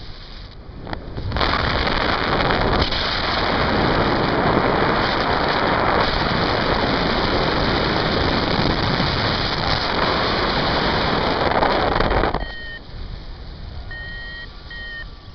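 Wind rushing over the camera microphone of a paraglider in flight, loud and steady for about ten seconds, then dropping away. In the last few seconds come a few short high beeps from the pilot's flight variometer.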